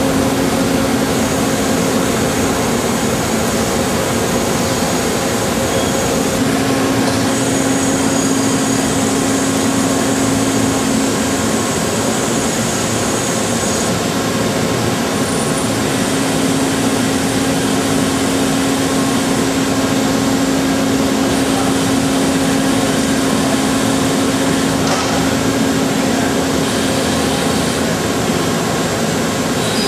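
CNC lathe running, a loud steady machine noise with a constant hum and a high whine that comes and goes.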